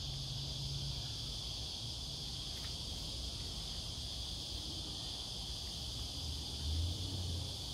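Steady, high-pitched chorus of insects, unbroken throughout, over a low rumble.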